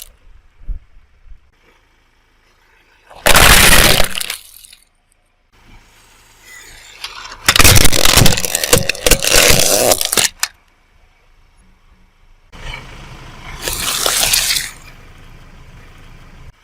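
Brittle objects being crushed under a car tyre: three loud bouts of crunching and cracking, the middle one longest and full of sharp snaps.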